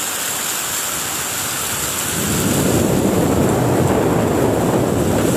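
Heavy rain pouring in a storm with strong wind, a steady hiss. About two seconds in, a deeper rumble of wind builds up and stays loud.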